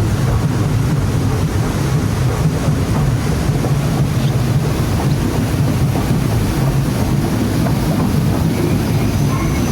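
Steady rush of water around a Kali River Rapids river raft as it floats along the channel, with wind buffeting the microphone.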